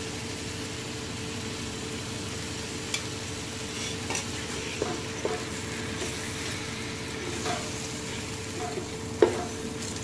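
Tomatoes and green chillies frying in ghee in an aluminium pot while being stirred with a wooden spatula: a steady sizzle with scattered knocks and scrapes of the spatula against the pot, the loudest about nine seconds in.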